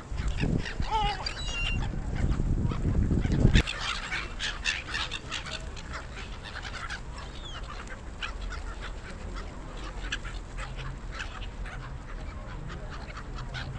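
A flock of gulls calling, many short harsh calls overlapping one another. A loud low rumble runs under the calls and stops suddenly about three and a half seconds in.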